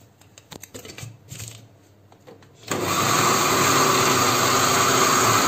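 A few faint knocks, then about two and a half seconds in a countertop electric blender switches on and runs steadily. It is beating an egg into sugar and oil for cake batter.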